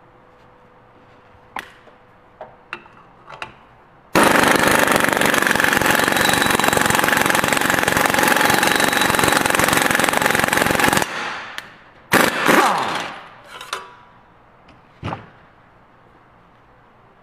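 Air impact wrench hammering steadily for about seven seconds as it drives an exhaust pipe expander, starting and stopping abruptly. A few light metal clicks come before it, and a few metal clanks and a scrape follow.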